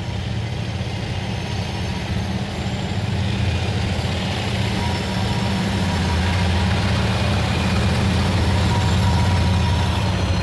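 Diesel locomotives of a loaded freight train approaching, their engines a deep steady drone that grows slowly louder.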